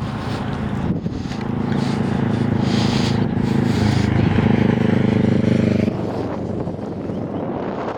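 A road vehicle's engine running close by with a steady hum that drops away sharply about six seconds in, over wind buffeting the microphone.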